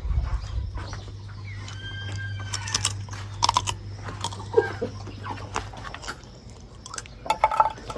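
Domestic hens clucking and calling in short scattered bursts, over a steady low hum.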